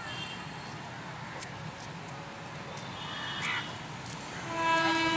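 Diesel locomotive horn sounding one long, steady blast that starts about four and a half seconds in, as the train approaches.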